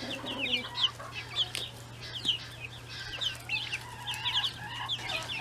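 A flock of young chicks peeping as they forage: many short, high cheeps, each sliding down in pitch, coming in quick clusters. A low steady hum runs underneath.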